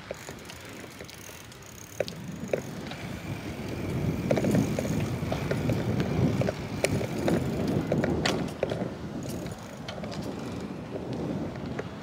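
Bicycles rolling on pavement: a rumbling noise that swells in the middle, with scattered clicks and knocks from the bikes.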